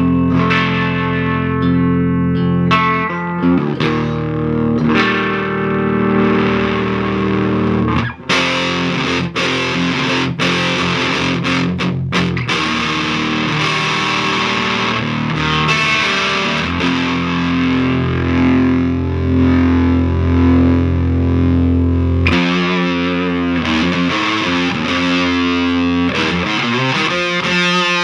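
A plucked electric string instrument played through an Ezekiel 25:17 full-frequency overdrive pedal, switched on and giving a distorted, fuzzy tone: a run of picked notes and riffs with a short break about eight seconds in, then longer held notes.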